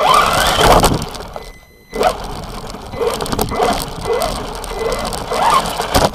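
Knocks and scuffing picked up by the camera on a 1:16 RC car as a foot kicks the car, loudest in the first second. After that comes uneven rustling and wind noise, with a faint steady whine.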